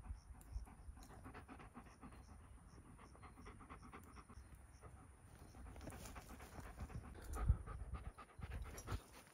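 German Shepherd dog panting with its mouth open and tongue out: quick, short breaths repeating all through, with a low thump about seven seconds in.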